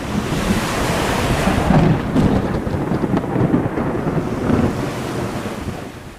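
Thunder rolling through a hurricane storm over rain and wind, loudest in the middle and fading away near the end.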